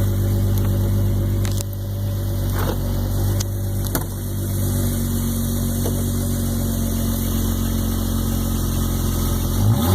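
2015 Jeep Wrangler's 3.6-litre V6 idling steadily through a muffler-delete exhaust, with a few faint ticks in the first four seconds. Near the end the engine note changes abruptly.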